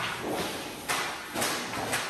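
A few sharp metallic knocks, about half a second to a second apart, each with a short ring, from sheet-steel work.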